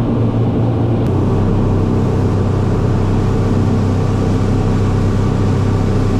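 A motor engine running steadily and loudly at an even, unchanging pitch.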